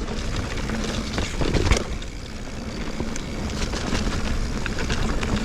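Mountain bike riding fast over rough woodland singletrack: steady tyre and trail rumble with wind on the action camera's microphone, and frequent small clicks and rattles from the bike over roots, with one sharp knock a little under two seconds in.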